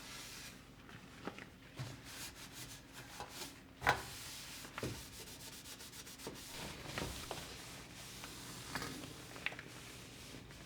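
Rubbing and scraping as objects are handled, with scattered light knocks and one sharper knock about four seconds in.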